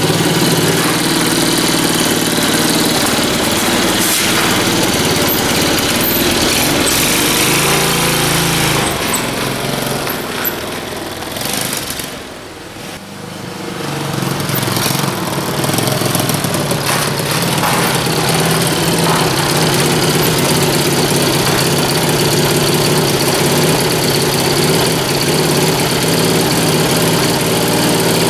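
The single-cylinder engine of a small 100cc quad ATV running steadily, fitted with a new carburettor. It fades for a moment about twelve seconds in, then comes back up to the same steady running.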